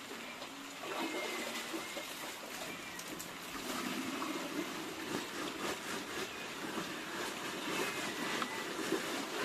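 Water trickling with light splashing, a steady low rush.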